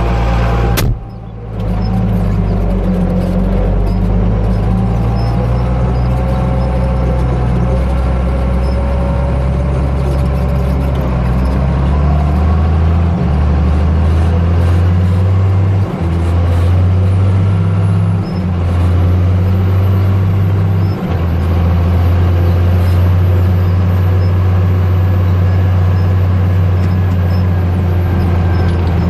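Ford 8830 tractor's diesel engine running steadily with a deep drone, broken off briefly about a second in and with a few sudden small shifts in its pitch later on.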